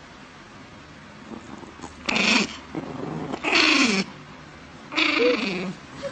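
Dog making three short, rough calls about a second apart, each sliding down in pitch.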